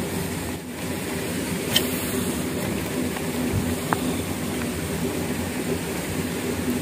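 A steady mechanical hum with a low droning tone, with two faint ticks, one about two seconds in and one about four seconds in.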